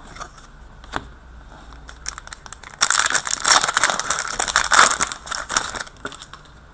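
Trading-card pack wrapper crinkling as it is torn open and the cards pulled out, a dense run of crackling from about three seconds in to about six.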